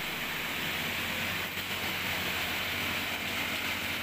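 Steady machinery running: a loud, even hiss over a fast, fine low rumble.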